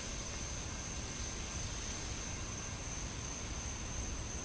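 Steady, high-pitched insect drone of summer crickets or cicadas, with a faint pulsing above it, over a low, even rumble.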